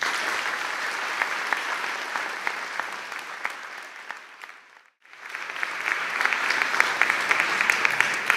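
Audience applauding with dense clapping. The applause fades and breaks off about halfway through, then swells up again and grows louder toward the end.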